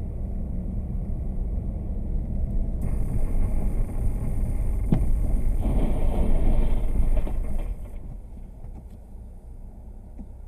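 Road and engine noise of a car heard from inside the cabin as it brakes on a snowy road. The rumble and tyre hiss swell through the middle, with one sharp click about five seconds in, then fall away as the car slows almost to a stop near the end.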